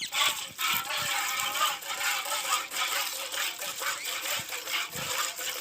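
Hand-milking a cow: repeated short squirts of milk hitting a metal pail, a busy hissing patter with a metallic ring.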